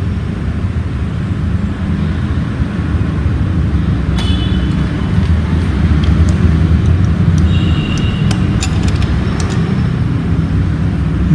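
Steady low background rumble, like distant traffic, a little louder in the second half. A few light clicks as tweezers work the thread through the overlock machine's looper guides.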